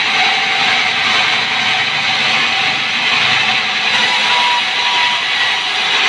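Sawmill band saw running steadily, a loud dense whir and hiss, with a brighter high hiss joining about four seconds in.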